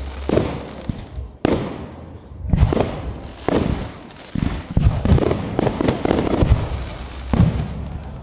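Aerial firework shells bursting in quick succession: a dozen or so sharp bangs, each trailing off in a rumble, coming thickest in the middle.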